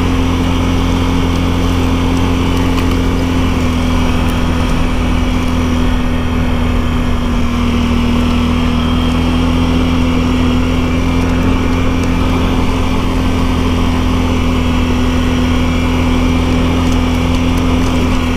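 ATV engine running at a steady speed while riding along a trail, a constant drone with an unchanging hum.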